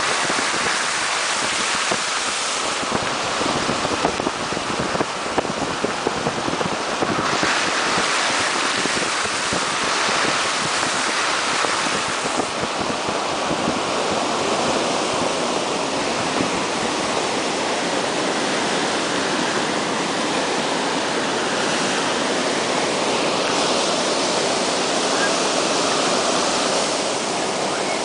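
Steady rush of water: spray thrown up by a car driving through deep floodwater, and a flooded river running fast beside the road, with some wind noise on the microphone.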